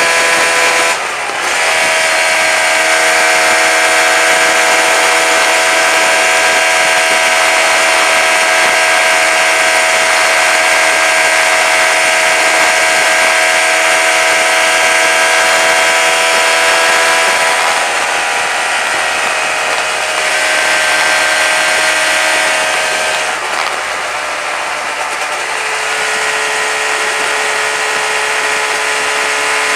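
1990 Yamaha RD350 F2's two-stroke parallel twin through Jim Lomas expansion-chamber exhausts, running at steady revs under way on the road. The engine note dips briefly about a second in, then drops to a lower pitch about two-thirds of the way through and again a little later.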